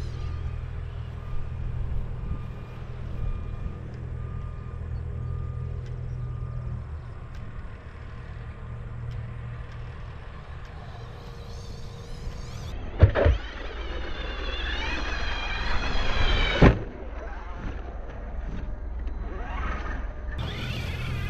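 Brushless electric motor of an Arrma Outcast 4S RC truck whining as the truck accelerates, the pitch rising over about four seconds, with a sharp knock as it starts and a louder one as it cuts off. A second rising whine starts near the end. Before that, a steady low rumble.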